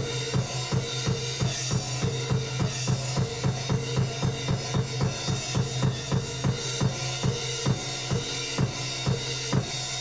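Drum-driven music with a fast, steady beat over a held low bass note, played back through a pair of Canton Karat 100 three-way closed compact speakers with 200 mm woofers.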